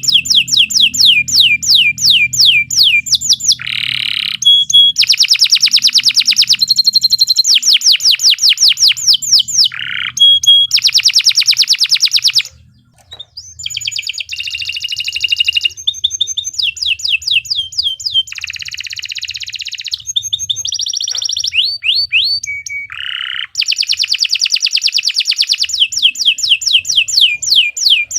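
Domestic canary singing a long, loud song. It runs in fast rolls of repeated down-sweeping notes, about five a second, broken by buzzy phrases and short held whistles, with a brief pause about halfway through.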